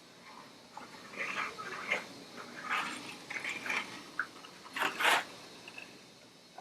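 Hands handling objects on a workbench: scattered clicks, taps and rustles, with the loudest pair of knocks about five seconds in.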